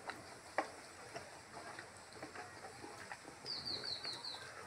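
Hand-eating sounds of rice and pork curry: scattered soft mouth clicks and smacks from chewing, the sharpest about half a second in. A quick run of about five short, high, falling chirps comes a little after three seconds in.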